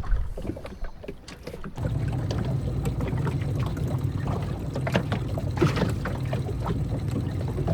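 A boat motor running with a steady low hum that starts abruptly about two seconds in, with scattered light clicks over it.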